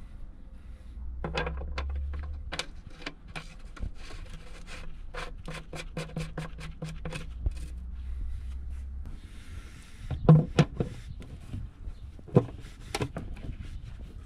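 Hand work on parts or tools: a run of sharp clicks and knocks with some scraping, and a few louder knocks about ten and twelve seconds in.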